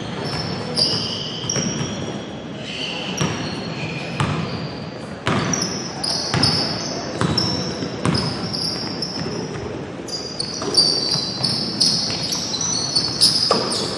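Basketball sneakers squeaking on a gym floor in many short, high squeaks, thickest in the second half, with a basketball bouncing about once a second and voices murmuring in the hall.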